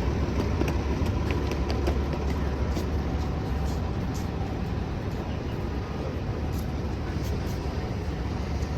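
City street traffic: a steady low rumble of passing and idling vehicle engines, with a few faint ticks over it.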